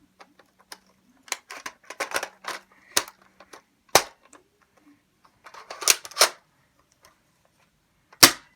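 Plastic clicks and rattles of an airsoft shotgun being handled while an accessory is pushed and snapped into place, with several sharp snaps, the loudest about four seconds in and near the end.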